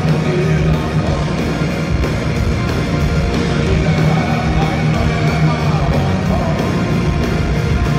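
Live heavy metal band playing loudly: distorted guitar and drums over a heavy bass.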